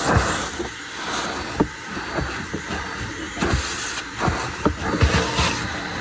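Shop vacuum running with a steady rushing hiss, its hose and extension wand bumping against the trunk's plastic trim and carpet in several dull knocks.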